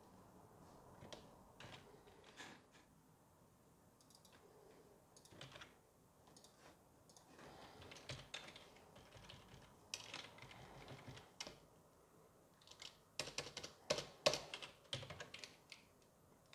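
Faint typing on a computer keyboard: scattered keystrokes, then a quicker run of louder keystrokes near the end, as a command is typed in.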